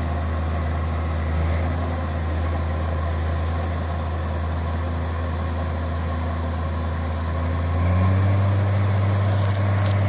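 Diesel engines running steadily: a John Deere 630 combine harvester with a Perkins diesel, and a tractor close alongside. The engine sound grows louder about eight seconds in.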